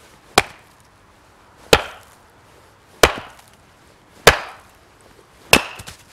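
Small axe chopping firewood on a chopping block: five sharp blows about a second and a quarter apart, the last followed by a few light knocks.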